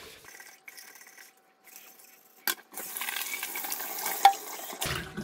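Faint scrubbing inside a stainless steel travel mug. Just under halfway through, the kitchen tap starts running and water splashes into the mug and the steel sink as it is rinsed, with one sharp knock near the end.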